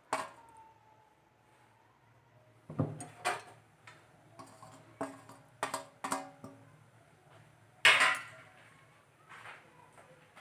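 Steel utensils knocking and clinking against a pressure cooker as chopped vegetables are tipped in. There are a string of sharp metallic knocks; the first rings briefly, and the loudest comes about eight seconds in.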